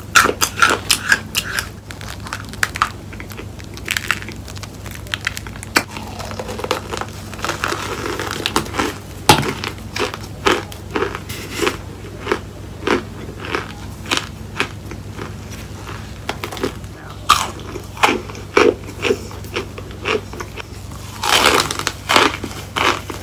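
Close-miked crunching and chewing of chunks of cornstarch: many short, sharp crunches at an uneven pace, thickest near the end.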